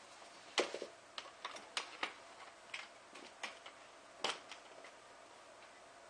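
Irregular light clicks and taps of hands handling a plastic box fan, the sharpest about half a second in and a little past four seconds in.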